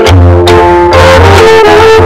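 Background music: held melody notes, brassy in tone, over a pulsing bass line and a steady beat of about two strokes a second.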